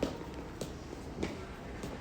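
Footsteps at a steady walking pace, about four steps, over a steady low background hum.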